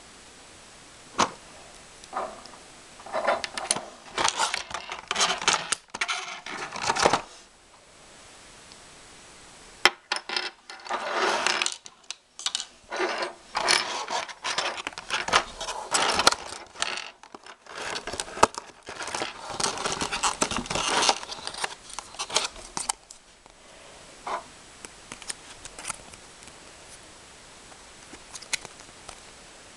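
Handling and unpacking of a Beyblade spinning top and its plastic packaging: clicks, clinks, scrapes and rustling in bursts, busiest in the middle, with only a few faint clicks near the end.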